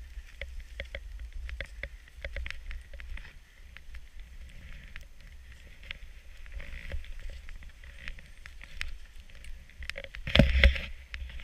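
Skis running through deep powder snow, a steady swish with many small clicks and knocks, over a low rumble of wind on the microphone. A louder burst of noise comes near the end.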